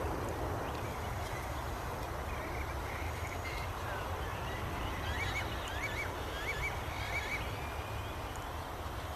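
Steady outdoor noise with a low wind-like rumble, and in the middle a run of short, high, warbling calls, the last four quick and alike.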